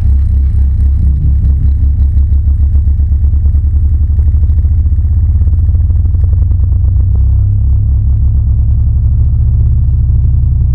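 Subwoofer playing a loud, deep low tone that throbs rapidly, then settles into a steadier hum about seven seconds in. The tone shakes a mixture of blood and corn starch on the speaker.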